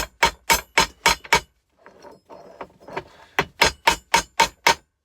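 Hammer blows on a car compressor's cast aluminium casing, knocking out the iron bolt stubs left inside. The blows come fast, about four a second, with a metallic ring: a run of about seven in the first second and a half, a short shuffle of handling, then another run of about six.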